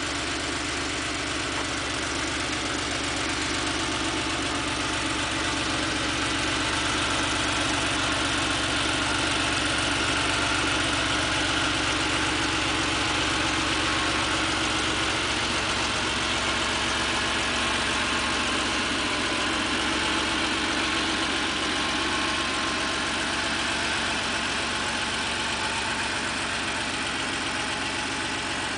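1987 Porsche 911 Carrera's air-cooled 3.2-litre flat-six idling steadily through a Billy Boat aftermarket muffler, a little louder for several seconds around the middle.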